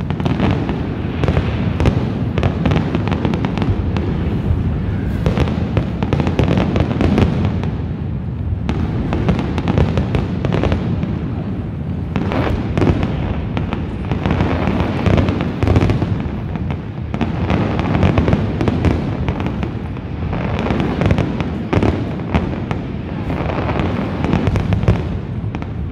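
A large aerial fireworks display: many shells bursting in a dense, continuous barrage of overlapping bangs, with a heavy low rumble underneath.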